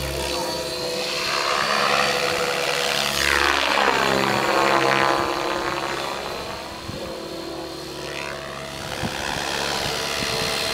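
Radio-controlled funfly aerobatic model airplane flying past, its propeller and motor giving a steady buzzing drone. The drone swells and sweeps as the plane passes close by, loudest about two to five seconds in, then falls back.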